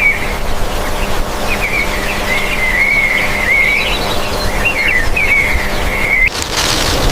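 Birds chirping in a continuous wavering twitter over a steady low rumble. The chirping stops abruptly about six seconds in, when a broader rushing noise takes over.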